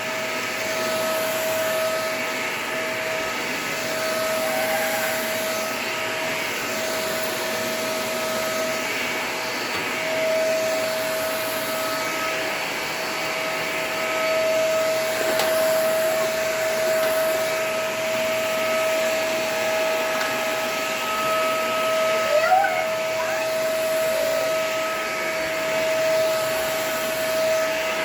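Vacuum cleaner running steadily over an area rug: a constant motor whine at one steady pitch over a broad rush of air.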